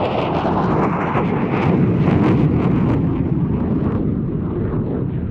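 Jet noise from an RAF Eurofighter Typhoon's two EJ200 turbofans as it flies its display. The roar is loud and crackling, peaks about two seconds in and eases and dulls after about four seconds.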